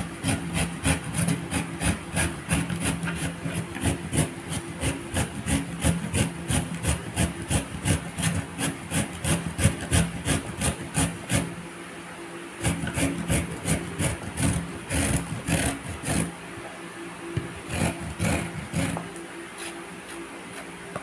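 A carrot being grated by hand on a flat stainless-steel grater pressed against a wooden cutting board: quick, even rasping strokes, about three a second, with a short break about twelve seconds in and fewer strokes near the end.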